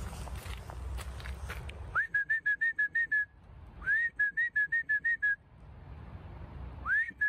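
A person whistling to call a dog: three calls, each a quick rising whistle followed by a run of short, rapid chirping notes lasting a little over a second.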